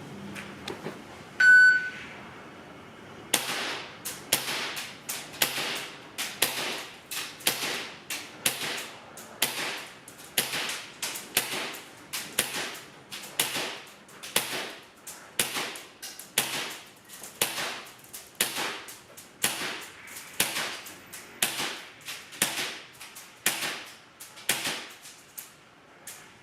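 Airsoft gun firing BBs at a paper target in a steady string of about twenty sharp shots, roughly one a second. A short single beep comes shortly before the first shot.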